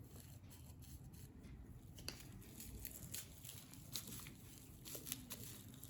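Faint crinkling of plastic bubble wrap and paper being handled, with a few light taps.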